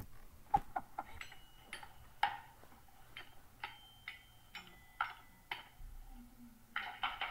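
Toy xylophone struck with a mallet: single notes about twice a second, each a sharp tap with a short ringing tone, then a quicker run of strikes near the end.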